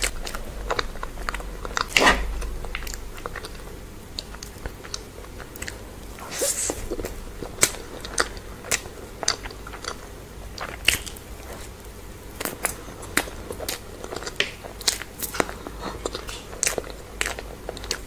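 Close-miked eating sounds of a person chewing spoonfuls of chocolate cake: wet chewing and mouth sounds with irregular sharp clicks, a louder one about two seconds in.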